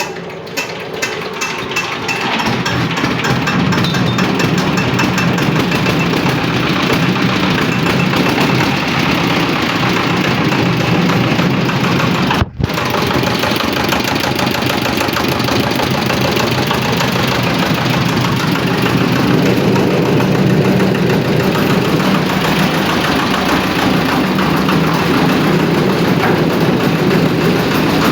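Dongfeng R180 single-cylinder diesel engine running on a 500-litre concrete mixer. It builds up over the first couple of seconds and then runs steadily, with a split-second break about twelve seconds in.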